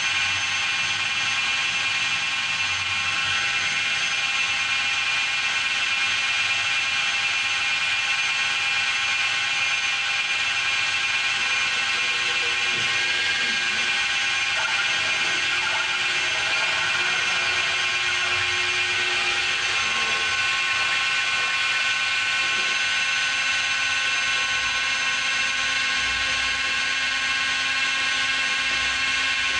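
Makita 750 W die grinder, used as the spindle of a homemade CNC router, running at a steady high speed: a continuous high whine made of several steady tones. Fainter shifting tones come in around the middle as the machine's axes move the spindle.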